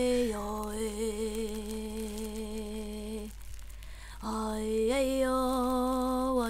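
A voice singing long, wordless held notes with a slow vibrato, in a slow folk-style melody. It breaks off about three seconds in, comes back a second later, and steps slightly up in pitch.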